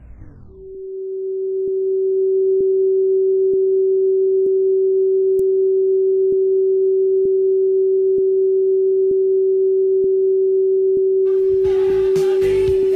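Television test-card tone: a single steady beep that fades in over about two seconds, with faint ticks a little under once a second. Just before it, music winds down in pitch and stops. About eleven seconds in, music with singing starts again over the tone.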